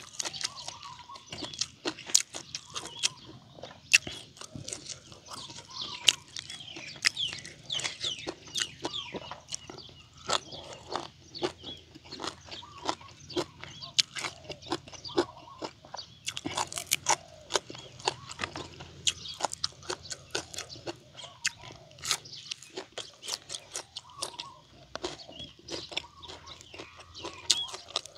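Close-up chewing and crunching of grilled frog and salad eaten by hand, dense irregular crunches throughout. Birds chirp faintly in the background, mostly in the first half.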